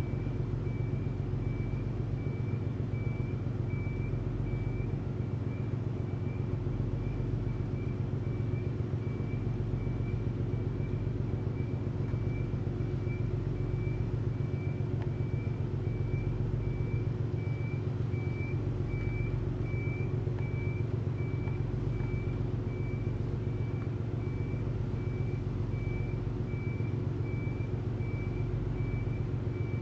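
Steady low diesel engine drone, the kind of hum a large moored ship's engines or generators make at berth, with a faint high tone pulsing evenly a little faster than once a second.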